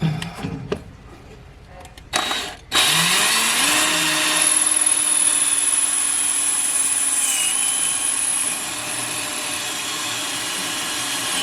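Power drill boring into ceramic wall tile. After a short burst about two seconds in, the drill runs continuously from about three seconds in, its pitch rising briefly and then holding steady.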